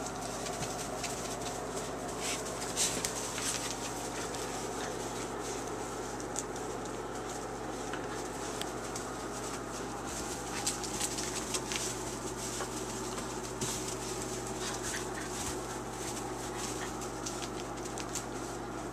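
A litter of five-and-a-half-week-old puppies scuffling through wood shavings and pawing at a wooden pen wall: scattered rustles, scratches and small clicks over a steady background hum.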